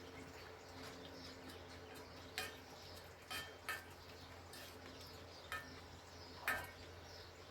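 Spoons clinking against noodle bowls about five times, short sharp taps with the loudest near the end, over a faint steady hum.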